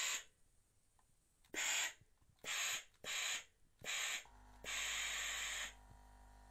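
Philips GC 8620 steam generator iron letting out short hissing puffs of steam, four in quick succession and then a longer one of about a second. About four seconds in, a steady low hum starts: the unit's water pump topping up the boiler.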